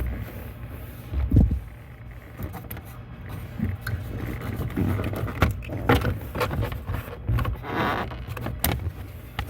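Scattered knocks, clicks and scrapes of hand tools and plastic trim being worked under a car's steering column, over a low steady hum, with one louder knock about a second in.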